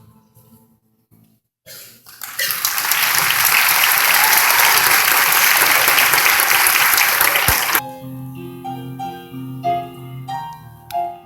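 Audience applauding loudly for about six seconds after a short silence; the applause stops suddenly and a piano starts playing.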